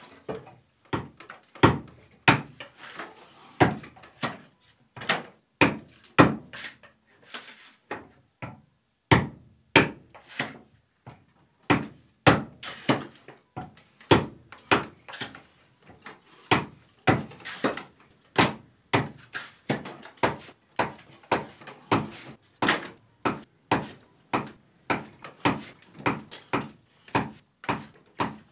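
Wooden mallet striking the back of a froe again and again, splitting roof shingles off a wooden block: sharp wooden knocks, irregular at first, then a steady pace of about two a second.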